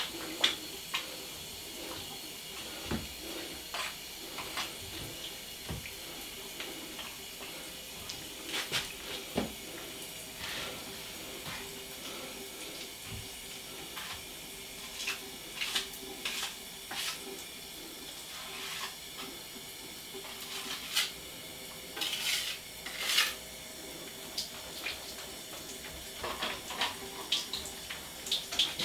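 Metal taping knife scraping and clinking against a mud pan as drywall joint compound is mixed and worked: irregular scrapes and light metallic taps, coming in small clusters.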